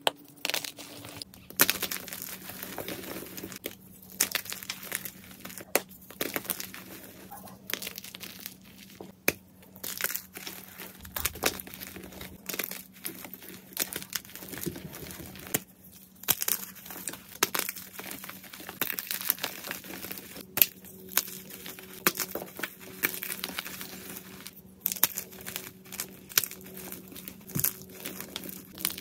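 Fresh blocks of white gym chalk crushed and crumbled between the fingers: dense, irregular, crisp crunching and crackling as the blocks break into pieces and powder.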